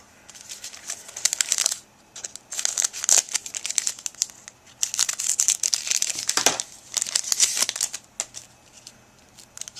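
Crinkling of a foil trading-card pack wrapper and cards being handled, in three spells of dense crackling with short pauses between, dying down near the end.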